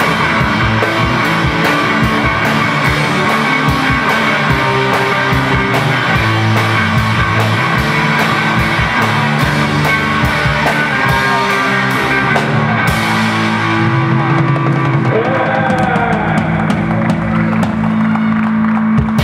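Live rock band playing with drum kit, electric guitar and bass guitar. About two-thirds of the way through, the steady cymbal-and-drum beat drops away, leaving held guitar and bass notes with a sliding guitar note.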